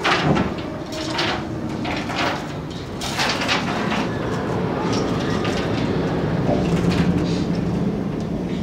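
Scattered knocks and shuffles of a performer's footsteps crossing a small wooden stage and settling onto a stool, over a steady background din.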